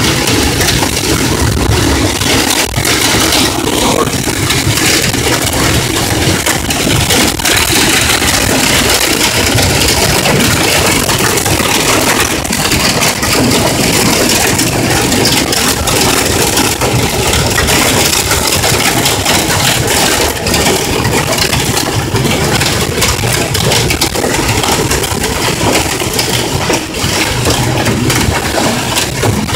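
Hail and heavy rain pounding on a car's roof and windshield, heard from inside the cabin: a loud, unbroken clatter of countless small impacts.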